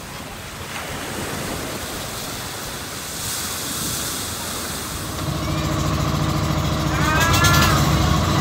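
Water rushing and wind noise on a moving boat, then a steady engine drone comes in about five seconds in and grows louder.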